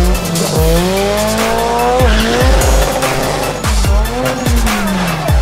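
Toyota AE86 Corolla drag car launching, its engine revving hard and rising and falling in pitch, with tyre squeal. Hip-hop music with a heavy, regular bass beat plays over it.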